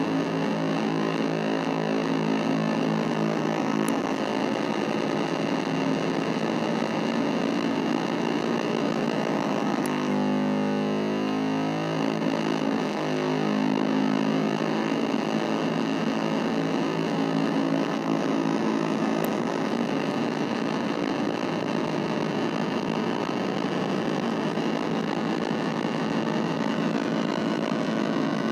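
Casper Electronics Nova Drone analog drone synthesizer playing a dense, distorted, buzzing noise drone. Its pitch pattern changes about four seconds in, and a warbling sweep comes and goes about a third of the way through.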